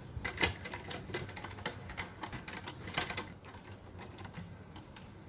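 Irregular light clicks and taps, several a second, the sharpest about half a second in and at three seconds; they thin out over the last two seconds.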